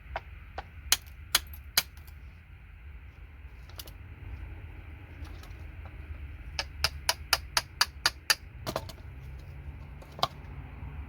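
Sharp clicks and taps of a chisel striking a circuit board, knocking off surface-mount resistors. A few come singly, then a quick run of about eight in the middle, over a steady low hum.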